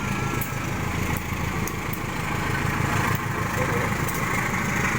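Diesel locomotive engine running steadily at the station, a continuous low hum.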